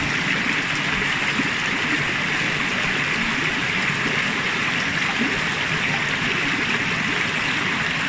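Shallow mountain stream running over rocks, a steady rush of water without any change in level.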